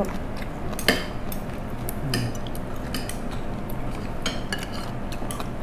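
Metal spoons and forks clinking and scraping on ceramic plates during a meal, in scattered short clicks, the sharpest about a second in.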